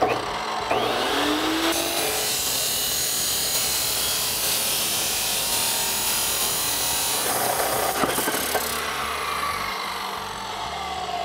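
Abrasive chop saw cutting through a stainless steel exhaust pipe: the motor spins up with a rising whine, the cut-off wheel grinds through the pipe with a dense hiss for about six seconds, then the motor winds down with a falling whine near the end.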